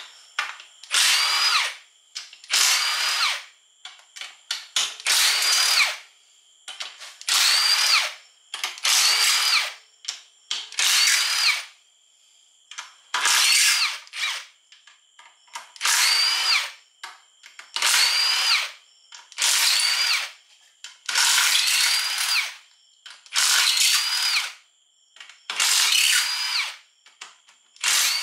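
Cordless power driver spinning out bolts from a transmission case cover, one bolt after another: about a dozen short runs of motor whine, each rising quickly in pitch and then holding for about a second, with short pauses between.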